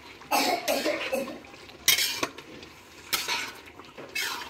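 Metal spatula stirring a thick curry in a kadhai (wok), scraping across the pan in about four separate strokes.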